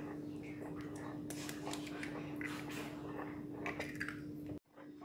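A hen's egg cracked and dropped into a bowl of rice-flour batter, then a metal spoon clicking and squishing through the wet batter, over a steady low hum.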